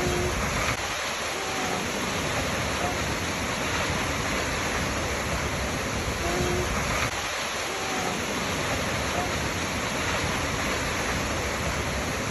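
Waterfall water rushing with a steady, even roar.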